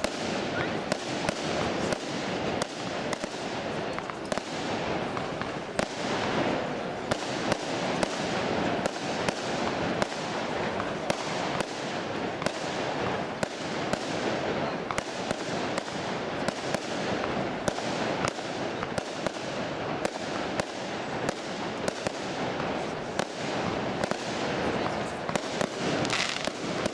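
A long, continuous string of firecrackers going off in rapid succession: dense crackling with sharper, louder bangs several times a second, never pausing.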